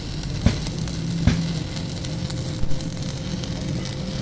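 Workshop machinery running with a steady low hum and a crackling hiss, broken by three sharp knocks.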